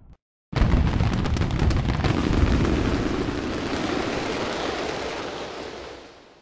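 Aerial fireworks: a sudden boom about half a second in, then dense crackling over a rumble that slowly fades out over about five seconds.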